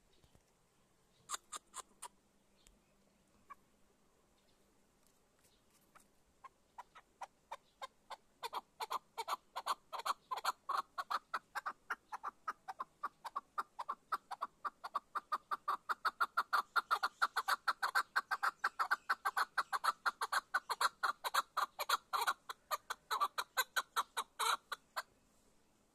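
Caged chukar partridge calling: a few short notes, then a long rapid run of clucking calls, several a second, that builds up and grows louder before stopping suddenly.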